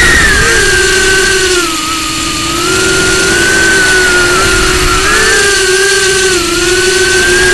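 Mini FPV quadcopter's brushless motors and Emax Avan 2-inch propellers whining loudly, heard from the onboard camera. The pitch rises and falls with the throttle, dipping a little around two seconds in and again near six seconds.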